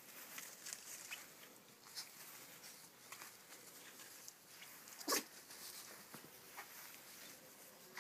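A puppy gives one short yip about five seconds in, over faint scuffling and rustling of small paws in grass.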